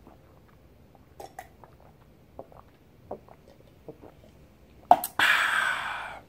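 A man gulping milk from a cup, with soft swallowing clicks, then a sharp click and a loud breathy 'ahh' exhale after the last gulp that fades out.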